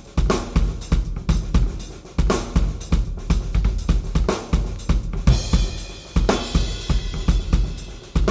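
Drum kit played in a steady groove: a Yamaha 9000 Real Wood kit with a Ludwig Supraphonic snare and Paiste 505 cymbals, bass drum, snare and hi-hat keeping the beat. A cymbal is struck about five seconds in and rings on under the beat.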